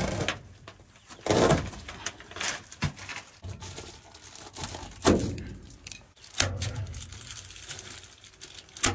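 Reflectix bubble-foil insulation crinkling as it is pressed up against roof rafters, with a handful of sharp staple-gun snaps fastening it.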